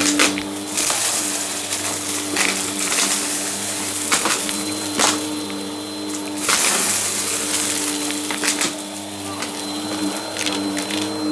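A Bissell bagless vacuum cleaner runs over a rug with a steady motor hum, sucking up confetti and sequins. Many sharp clicks and rattles come from the pieces being drawn into the intake and bin.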